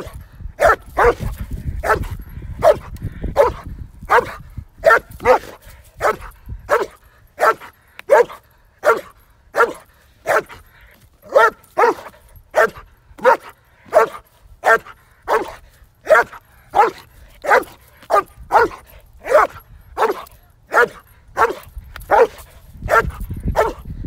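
Police dog barking steadily and without pause at a decoy it has found, about one and a half barks a second: the barking indication of a found person in KNPV search training.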